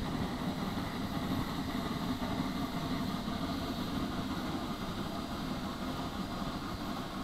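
Three-cylinder Shay geared steam locomotive running past under steam: a steady, rapid chuffing from its exhaust with the mechanical clatter of its vertical cylinders and geared drive.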